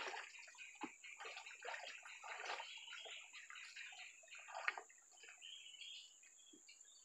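Water splashing and dripping as a wet gill net is hauled up and handled by someone wading in a river; light, irregular splashes that thin out near the end.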